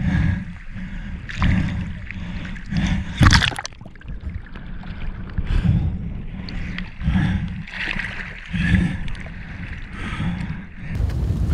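Choppy seawater sloshing and splashing against a camera held at the surface, in irregular surges about every second, with one sharp, loud splash about three seconds in. Near the end it gives way to a steadier rushing noise.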